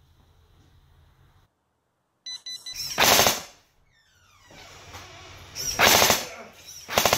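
A piezo buzzer gives quick short beeps, then a motion-triggered automatic airsoft M4 carbine fires short full-auto bursts of rapid shots: one about three seconds in, a second about six seconds in, and a brief third just before the end.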